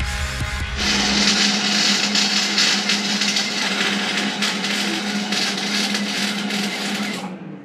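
Wire-feed (MIG) welder arc crackling and sputtering steadily over a low hum, then cutting off suddenly near the end as the overloaded 110-volt household circuit trips and kills the power.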